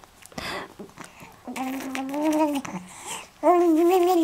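Baby vocalizing in two long, held, steady-pitched "aah" sounds. The second starts about three and a half seconds in and is louder.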